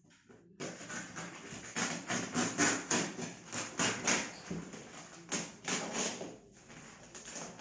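Plastic parcel wrapping and packing tape being slit with a utility knife and torn open by hand: a rapid, irregular run of crackling and ripping that starts about half a second in.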